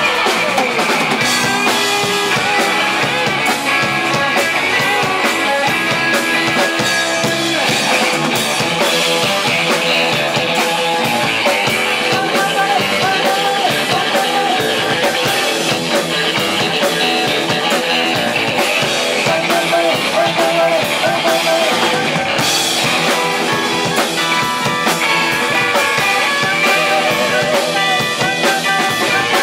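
Live band music: an electric stage keyboard, electric guitars and a drum kit playing a driving mod-jazz groove with no vocals heard.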